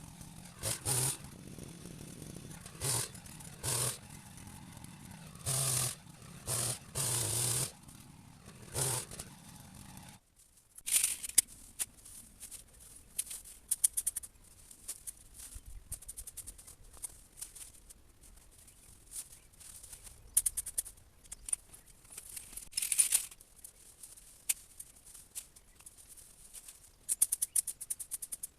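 A powered hedge trimmer run in short bursts of a second or less, about a dozen times, cutting through a berberis hedge. After a sudden break about ten seconds in, irregular crackling and rustling of cut hedge clippings.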